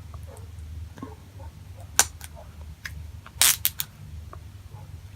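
Crinkly plastic toy packaging being handled: a sharp crackle about two seconds in and a quick cluster of crackles a second and a half later, over a low steady hum.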